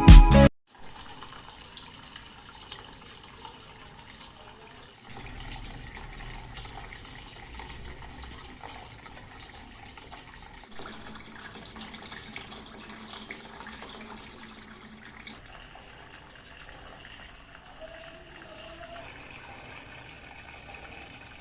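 Water running steadily from a small homemade tabletop waterfall fountain, trickling and splashing into its basin.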